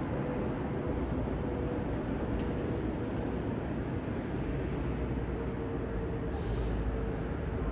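Jet engines of a Boeing 787-9 airliner passing overhead: a steady low rumble with a faint held tone in it.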